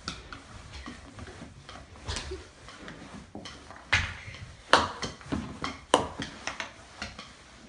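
Rustling and scattered sharp clicks and knocks as a hand puppet is shoved across a pool table's felt among the balls. The three sharpest clicks come about four, five and six seconds in.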